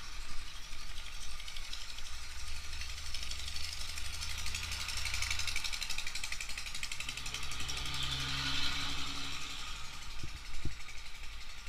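Motorcycle engine running while riding, a fast rattling engine note with road and wind noise. A deeper pitched engine hum joins in the second half, and two sharp knocks come near the end.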